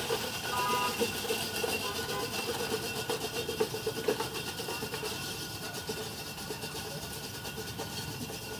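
Steady street noise: an engine-like rumble under a constant hiss, with a short high double tone about a second in.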